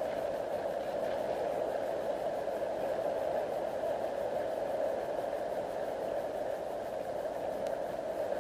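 Steady rushing noise with radio hiss, as picked up on an FPV model plane and carried over its video downlink's audio channel.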